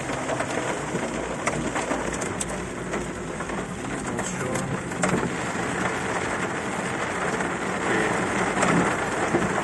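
Heavy rain drumming on a car's roof and windshield, heard from inside the cabin, as a hailstorm tapers off. A few sharp ticks of the last hailstones striking the glass stand out from the rain.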